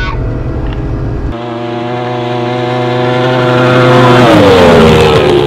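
Race boat's outboard engine running at speed. Its steady note starts abruptly about a second in, grows louder, then drops in pitch about three seconds later, around its loudest point, as if passing by.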